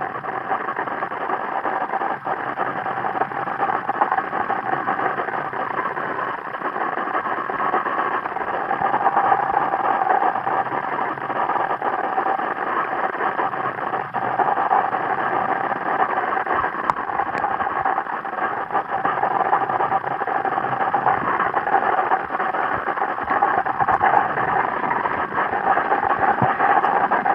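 Steady underwater noise: a continuous rushing hiss with a faint hum running through it and no separate events.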